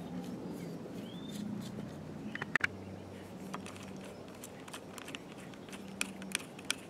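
Small sharp clicks and taps of a screwdriver turning and seating small screws in the rectifier and regulator end of a Bosch water-cooled alternator: a short cluster about two and a half seconds in and a quicker run of them near the end, over a faint steady low hum.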